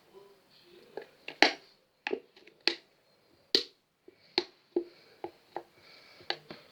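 About a dozen sharp clicks and taps at irregular intervals, like plastic containers and utensils being handled.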